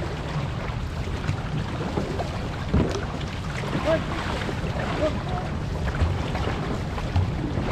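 Wind buffeting the microphone over a steady rush of water along an outrigger canoe's hull, with paddle blades catching the water about once a second.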